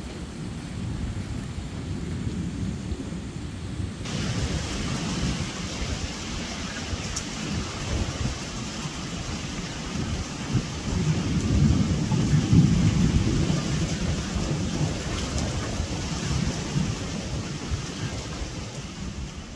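Thunderstorm: thunder rumbling low and swelling loudest about midway, with the hiss of torrential cloudburst rain starting abruptly a few seconds in.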